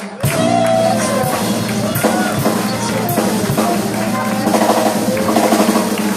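Live jazz band of piano, bass, drums and saxophone playing a song's instrumental ending, with the drum kit prominent.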